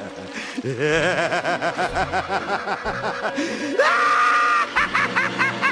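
Maniacal cackling laughter, a rapid ha-ha-ha that about four seconds in rises into a long high shriek before breaking back into cackling.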